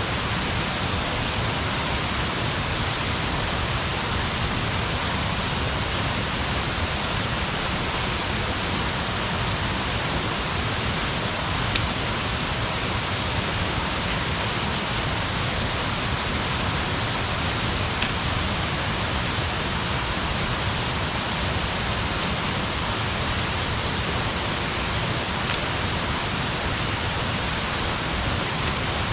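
Wood campfire burning: a steady rushing hiss with a handful of sharp crackling pops scattered through it, the loudest about twelve seconds in.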